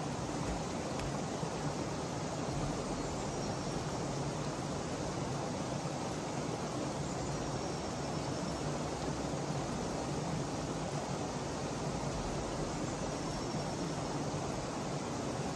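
Steady rushing of running water, an even hiss that holds at one level throughout.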